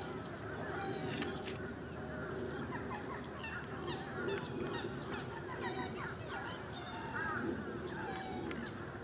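Many wild birds calling over each other in a swamp, a busy chorus of short squawks and chirps that overlap and never stop.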